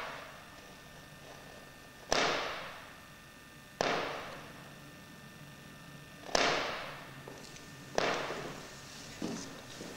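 Sound sculpture playing through a loudspeaker: irregular bursts of noise, each starting suddenly and fading away over about a second, four in a row with a fainter fifth near the end.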